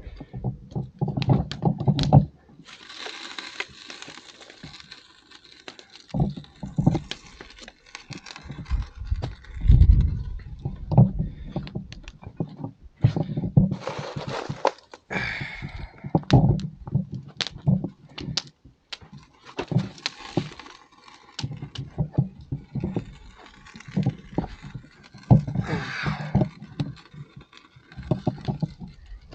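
Handheld fire extinguisher discharged in several short hissing bursts of one to two seconds each, aimed at flames on a harvester head. Irregular knocks and clatter come between the bursts.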